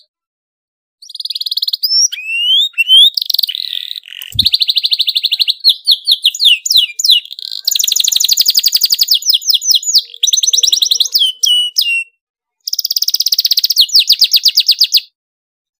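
Domestic canary in full, excited song: long runs of very fast, tight trills (rolls) mixed with high whistled glides. It breaks off briefly near the end, then gives one last rapid trill and stops.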